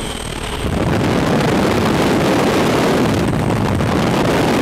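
Slipstream wind rushing across the microphone of a camera held out of the open door of a jump plane in flight: a dense, steady rush of air that swells about a second in and stays loud.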